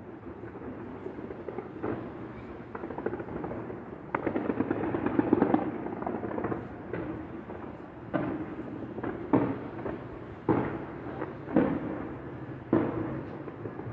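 Fireworks exploding: a dense run of bangs and crackle a few seconds in, then single sharp bangs about once a second toward the end.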